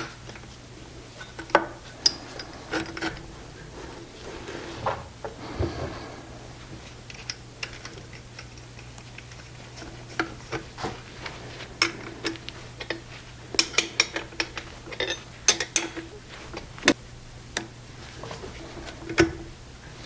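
Scattered light metal clinks and taps as steel pillow block bearings and nuts are handled and fitted onto muffler-clamp U-bolts, coming thickest a little past the middle, over a faint steady low hum.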